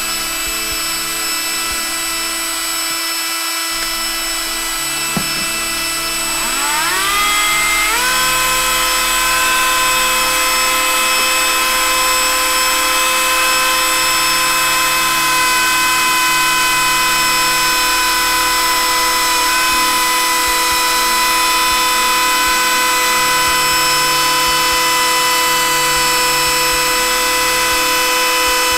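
Ryobi 18V One+ rotary tool station's motor running at high speed, driving its flex-shaft handpiece as the bit cuts into a plastic helmet: a steady whine that rises in pitch about seven seconds in, then holds level.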